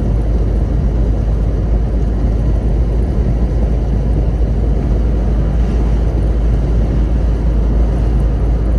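Car driving at steady road speed, heard from inside the cabin: a constant low rumble of engine and tyres on the tarmac.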